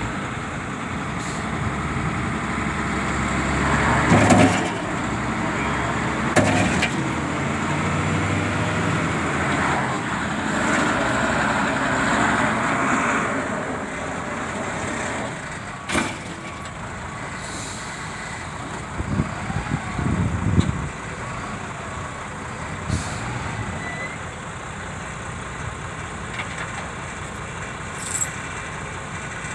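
Heavy diesel machinery running, louder in the first half and easing off after about fourteen seconds, with a few sharp knocks scattered through it.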